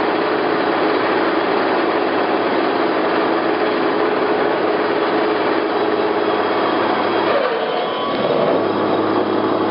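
Select 1880GH gap-bed engine lathe running under power, a steady mechanical whir with a hum through it. Near the end the sound shifts and a low steady hum sets in.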